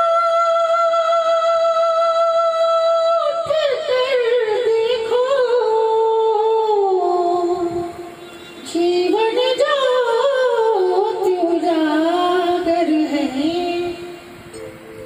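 A man singing solo in a high falsetto, in the style of a female singer: one long note held steady for about three seconds, then a wavering run of notes that falls, a short breath break about halfway, and another ornamented, falling phrase that tails off near the end.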